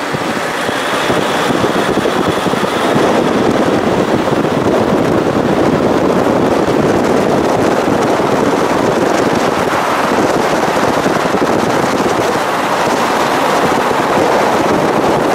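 Steady rush of wind and road noise from a moving car.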